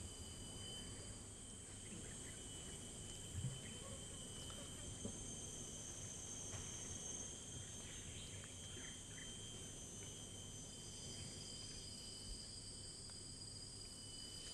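Faint, steady chirring of insects, with a few soft taps.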